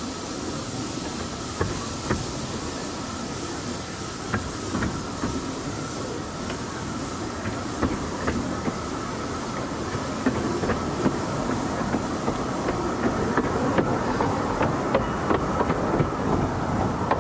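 Narrow-gauge train running slowly, a steady rumble with irregular clicks of the wheels over rail joints; it grows a little louder and the clicks come more often in the second half.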